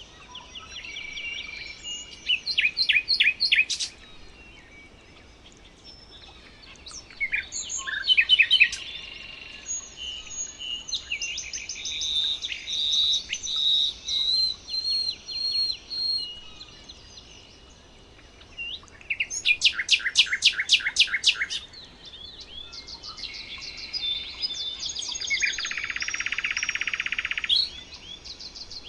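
Several songbirds singing and calling together, overlapping: fast series of repeated high chirps, clear whistled notes, and a buzzy trill near the end.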